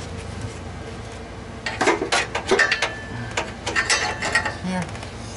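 Metal clinks, knocks and scrapes of an exhaust clamp being fitted onto the car's exhaust pipe joint by hand. They come in a cluster starting a little under two seconds in, with a brief metallic ring among them.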